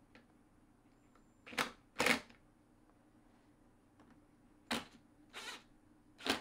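Cordless screwdriver driving wood screws in short bursts, five in all: two close together about one and a half to two seconds in, and three more in the second half. A low steady hum sits beneath.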